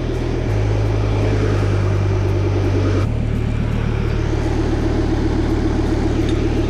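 Off-road 4x4's engine running steadily as it drives, its note shifting about half a second and again about three seconds in.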